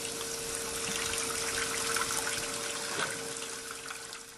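Water running from a tap, a steady rush with a faint steady tone in it, fading away near the end.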